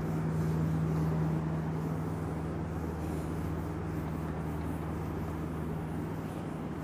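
Board duster wiping a whiteboard clean, a soft even rubbing over a steady low hum.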